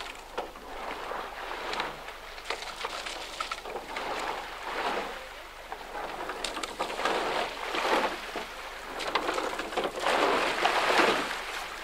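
Oars of a rowing eight dipping and splashing in the river as the crew rows past, the water noise swelling and fading with each stroke, with a few light knocks.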